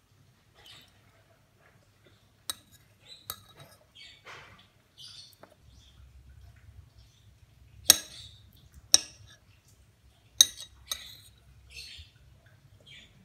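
A metal spoon clinking and scraping against a ceramic plate while cutting into a soft jelly dessert: about six sharp clinks, the three loudest in the second half, with soft scraping between them.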